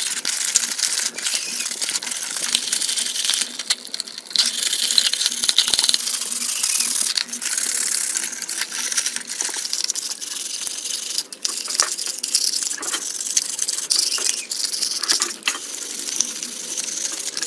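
Sponge scrubbing the soapy plastic body and chassis of a toy remote-control car under running water: a loud, scratchy rasping with many small clicks and knocks of the plastic parts.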